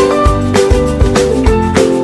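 Upbeat background music with a steady beat and sustained melodic notes.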